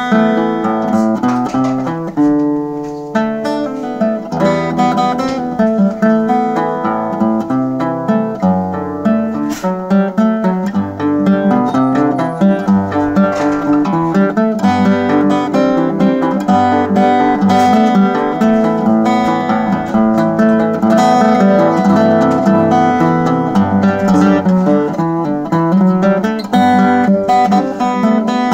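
Late-1950s DelVecchio acoustic guitar with a Brazilian rosewood body, played fingerstyle: a steady run of plucked melody notes over moving bass notes.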